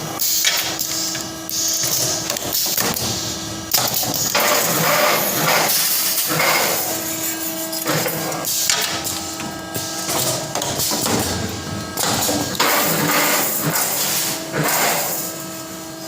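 Automatic galvanized-wire square bending and butt welding machine running through its cycle: a steady motor hum under a run of irregular mechanical bursts of noise, each lasting about half a second to a second.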